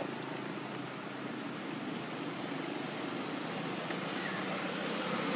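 Steady outdoor background rush, like a distant motor vehicle, growing a little louder near the end, with a couple of faint high chirps.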